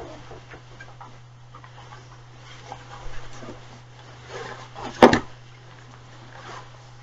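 Rustling and rubbing of a nylon waterproof jacket and a stuff sack being handled, with one sharp knock about five seconds in, over a steady low hum.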